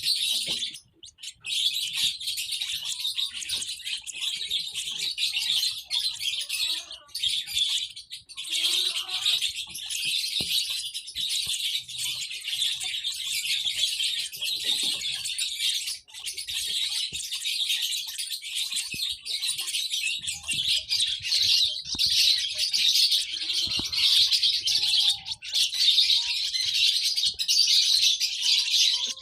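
Lovebirds chirping in a dense, high-pitched, almost unbroken stream, with a few short pauses, one about a second in and another about halfway through.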